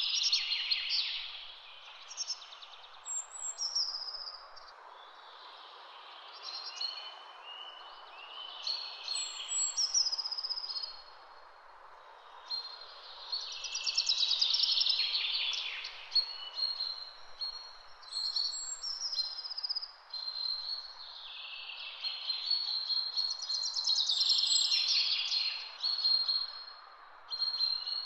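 Birds chirping and singing: short whistled phrases and rapid trills, the loudest trills at the start, midway and again about three quarters of the way through, over a steady background hiss.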